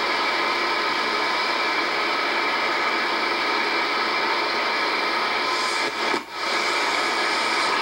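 Static hiss from an Icom IC-R8500 communications receiver tuned in AM mode across the 29 MHz band, with several faint steady whistle tones in it. It dips briefly about six seconds in. No station is coming through: the band is empty.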